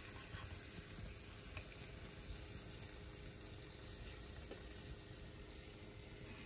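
Faint steady sizzling hiss from rice cooking in a Staub cast-iron pot on the stove, its water nearly absorbed as the rice comes close to done.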